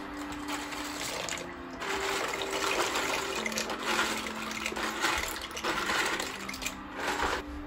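Dry penne pasta poured from a plastic container into a pot of water, a rushing pour that starts about two seconds in, swells and dips, and stops just before the end.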